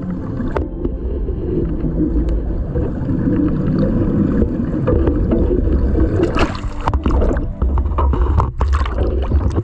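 Boat engine running, a steady low rumble, with a few sharp knocks in the last few seconds.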